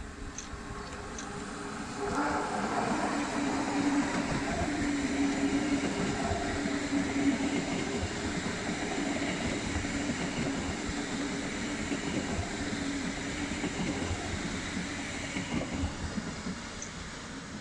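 Siemens Mireo electric multiple unit passing close by: a steady rumble of wheels on rails with a steady hum running through it. It grows loud suddenly about two seconds in and eases off near the end.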